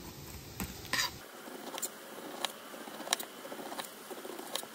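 A knife slicing down through the skin of a whole pineapple, a soft scraping crunch with a few sharp, scattered clicks.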